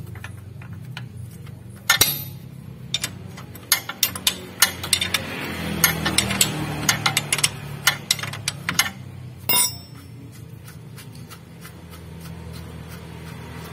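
Irregular sharp metal clicks and clinks of a ring spanner working the mounting bolts of a Mitsubishi L300's lower ball joint, most of them between about two and ten seconds in.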